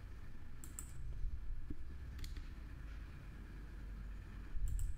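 A few scattered, faint clicks of a computer mouse and keyboard, over a low steady hum.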